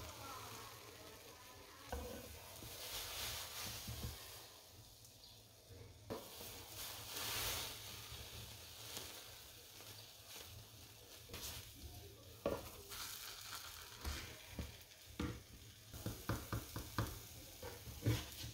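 Butter sizzling in a non-stick frying pan while a spatula scrapes under a thick soufflé omelette, lifts it and folds it over. Soft scrapes and taps of the spatula against the pan break through the sizzle, with a quick run of light clicks near the end.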